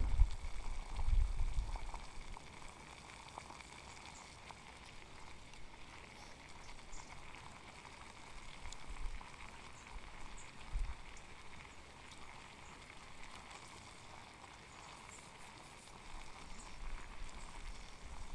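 Wind buffeting the microphone in low gusts, strongest in the first couple of seconds and once more midway. Between the gusts there is a faint steady hiss with light scattered crackles.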